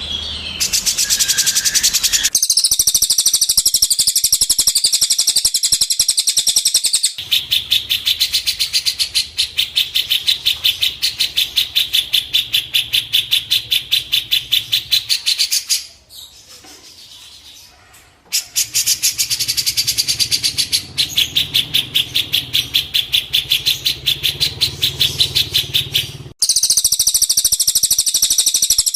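A songbird's high-pitched chatter of rapidly repeated notes, played as a looped bird-song training recording (masteran) in spliced sections that start and stop abruptly, with a brief quieter break about sixteen seconds in.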